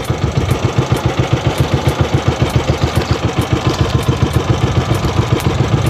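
Motorised outrigger boat's engine running steadily under way, a rapid even chugging of several beats a second.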